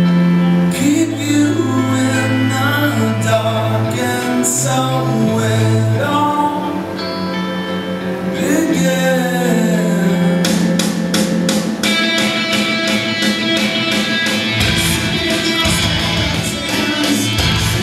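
Rock song: a sung line over sustained guitar, then drums enter about ten seconds in and the full band with heavy bass a few seconds later, as the song builds.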